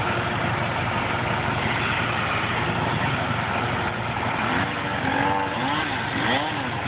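An engine running steadily; from about four and a half seconds a small engine is revved up and down over and over, about twice a second.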